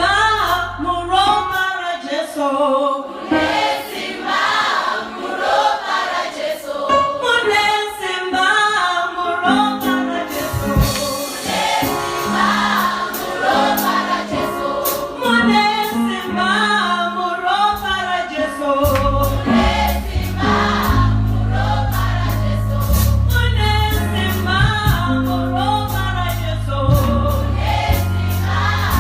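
Mass choir singing gospel music. A deep, loud bass line comes in about two-thirds of the way through.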